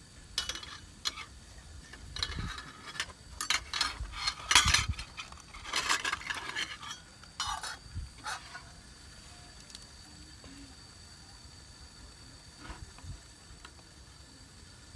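Cookware and utensils clattering: an irregular run of clinks and scrapes that dies away about eight seconds in.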